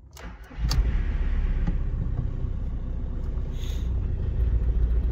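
A couple of clicks, then about half a second in a Volkswagen Golf IV's engine comes up loud and runs with a steady low rumble.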